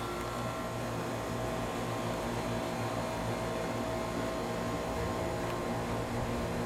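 Steady machine hum: several held tones over an even hiss, with a mid-pitched tone joining about half a second in.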